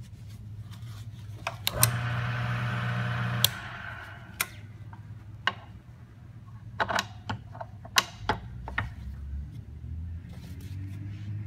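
Bearing test machine's electric motor runs for about a second and a half with a steady hum, spinning the freshly wiped bearing, then cuts off suddenly. Scattered sharp clicks and knocks follow as the machine's lever arm and parts are handled.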